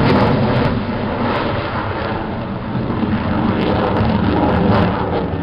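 Military jet fighter's engines running at high thrust during a display climb: a loud, steady rush of jet noise that swells a little in the middle.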